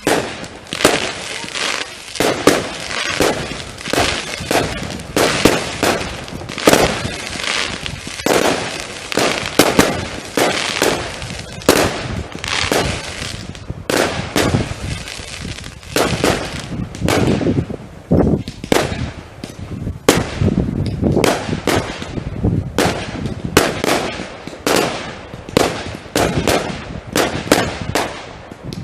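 Fireworks going off in a continuous barrage: sharp bangs and crackles, several a second, with no pause.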